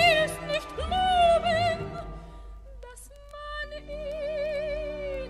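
Operetta music from an old record of poor sound quality: an orchestra under a melody carried in long notes with wide vibrato, softer for a moment just past the middle before another long held note.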